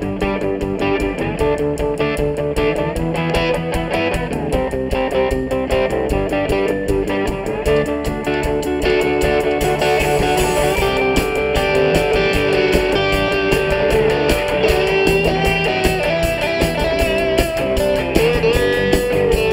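Live band playing an instrumental passage with no singing: electric guitar, electric dobro, bass and drums, with a sliding note near the end.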